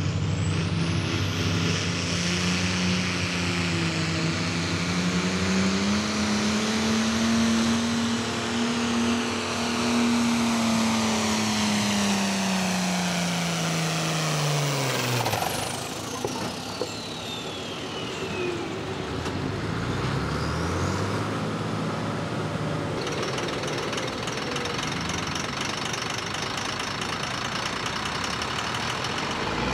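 Turbocharged 466-cubic-inch diesel pulling tractor under load, its engine note rising and holding with a high turbo whine over it. About halfway through the engine note falls sharply and the turbo whine sweeps down as it spools down, typical of the end of a pull. The engine then runs on at a lower note.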